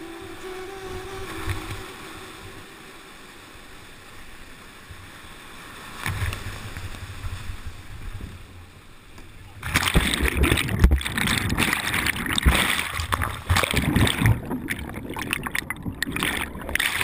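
River water rushing and splashing around a kayak, swelling from about six seconds in and turning loud and turbulent with low buffeting thumps from about ten seconds in.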